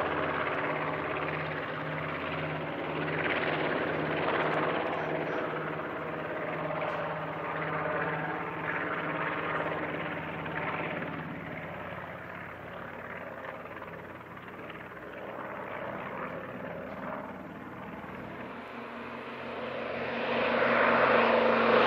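Piston-engined propeller aircraft droning with a slow, regular throb. It grows louder near the end as a twin-engine plane comes in low.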